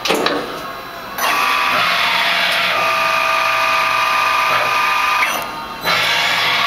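Miyano TSV-21 CNC drilling and tapping machine at work. A sharp clack at the start is followed by a steady whining run with several held tones. This stops briefly about five seconds in and starts again near the end.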